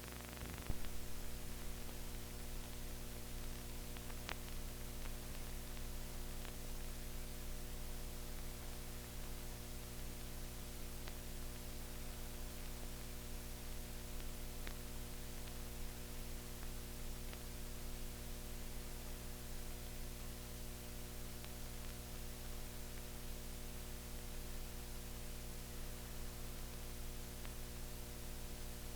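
Steady electrical hum with hiss, the noise floor of an old film transfer with no soundtrack, with a couple of faint clicks near the start.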